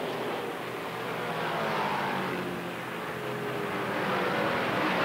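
Racing stock car V8 engines running at full speed on the track. The engine note sweeps in pitch as cars go by and grows louder near the end.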